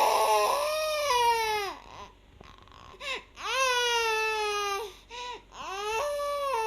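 A young child wailing in a tantrum: three long high-pitched cries with short gaps between them, each rising briefly and then falling away.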